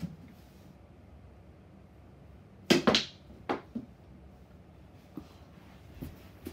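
Break shot on a miniature tabletop pool table: the cue ball smacks into the racked balls, giving a quick burst of hard ball-on-ball clacks about three seconds in. A few scattered knocks follow as the balls hit each other and the cushions.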